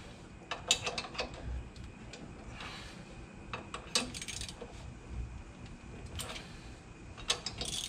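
Hand ratchet wrench and socket snugging down the lug nuts on a 2-inch wheel spacer, giving scattered metallic clicks and clinks at irregular moments.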